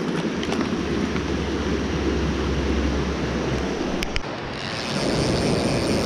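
Mountain stream water rushing steadily close to the microphone, with a couple of short clicks about four seconds in.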